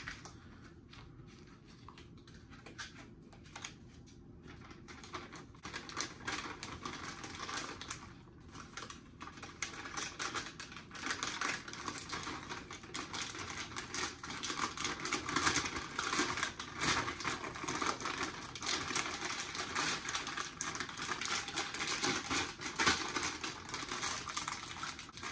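Crinkling and rustling of MRE plastic pouches being handled and worked into the flameless ration heater bag: a dense run of small crackles, quieter at first and busier from about five seconds in.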